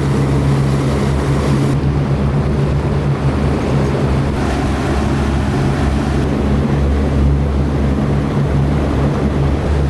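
Boat's outboard motors running at a steady speed, a constant low drone, with a wash of wind and water over it.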